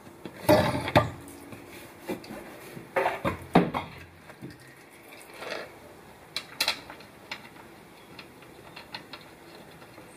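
Irregular handling clatter and metallic clinks as a gear-oil squeeze bottle is worked at a Subaru rear differential's filler hole and the filler plug is fitted back by hand for tightening with an Allen key. The loudest clattering comes about half a second in and again around three seconds, with sharp clicks a little past six seconds and fainter ticks after.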